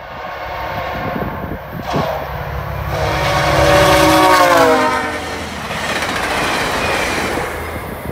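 VIA Rail F40PH diesel locomotive and passenger train passing at speed, its horn sounding and dropping in pitch as the locomotive goes by. Engine rumble and wheel-on-rail noise carry on after the horn stops.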